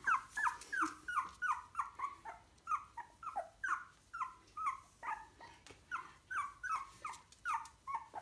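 A three-week-old Sproodle puppy crying, a steady run of short, high, falling squeals at about three a second.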